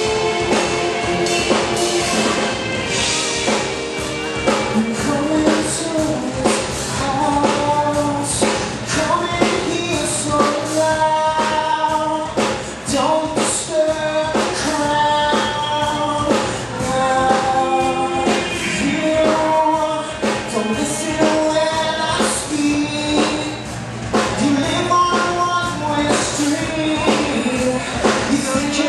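Live rock band playing a song: a lead vocal sung over a drum kit and band accompaniment.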